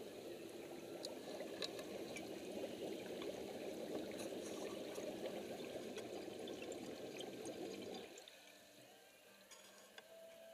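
Liquid pouring and splashing into a plastic tub as it fills, a steady rush that stops abruptly about eight seconds in.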